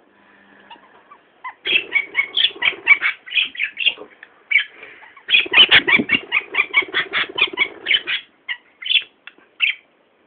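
Budgerigar chattering: rapid runs of sharp chirps in two long bouts, then a few scattered chirps near the end.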